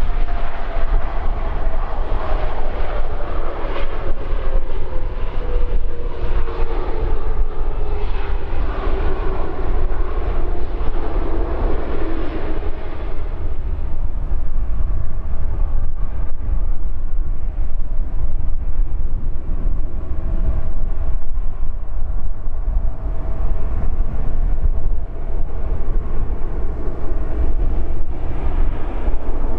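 Airbus A320's twin CFM56 turbofans spooling down after the landing rollout, their whine falling steadily in pitch over the first dozen seconds, then running at taxi idle with a steady fainter whine over a constant low rumble.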